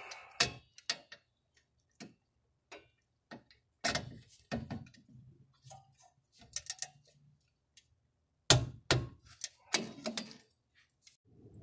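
Socket wrench ratcheting on a rear brake caliper bracket bolt as it is tightened: sharp metallic clicks in short irregular runs, with gaps of near silence, the loudest clicks about three quarters of the way through.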